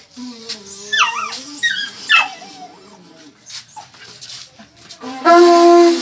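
Dog whining with high rising and falling cries over a wavering low note from a long pipe blown as a horn. About five seconds in, the pipe horn sounds a loud steady blast.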